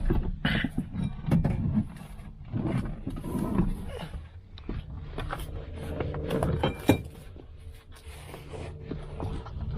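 Irregular clunks, knocks and rustling as a bucket seat is shifted and propped into place inside a car, with one sharp click a little before the seven-second mark.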